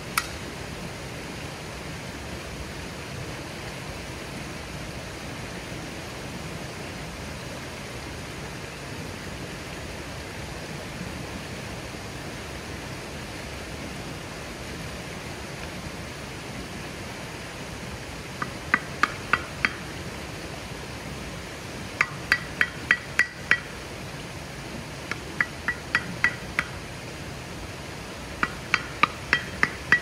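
A frying pan is used as a hammer to drive wooden stakes into the ground: four quick runs of five or six sharp, ringing knocks, starting a little past halfway. A fast-flowing river rushes steadily underneath.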